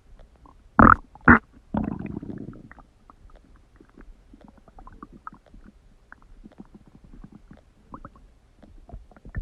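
Human stomach gurgling: two sharp loud pops about a second in, a bubbling rumble right after, then faint scattered gurgles and crackles.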